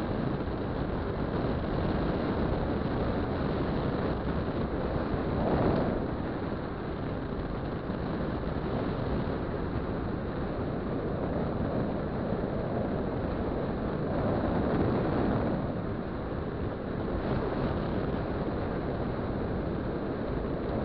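Wind rushing over the microphone of a camera on a moving two-stroke scooter, with engine and road noise beneath. The noise swells twice, about five seconds in and again about fifteen seconds in.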